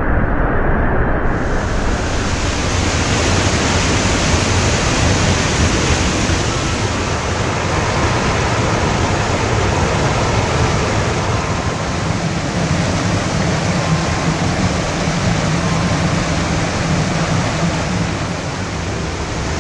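Loud, steady rush of a mountain stream in high flow, white water pouring over rocks and a small waterfall. The sound turns brighter about a second in.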